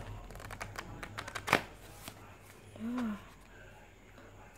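Pages of a softcover book being riffled and flicked: a quick run of paper flicks and snaps over the first two seconds, the loudest about a second and a half in.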